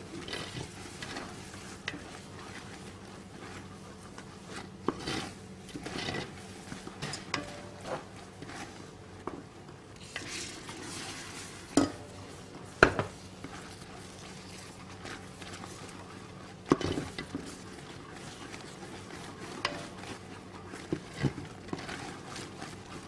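Wooden spoon stirring caramel in a large stainless steel pot, scraping and knocking against the metal, with a few louder knocks. About ten seconds in there is a short hiss of sizzling as more boiling cream is poured into the hot caramel.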